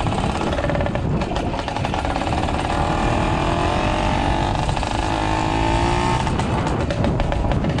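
Two-stroke motorized bicycle engine running under way on a ride, its pitch climbing for a few seconds around the middle as it speeds up.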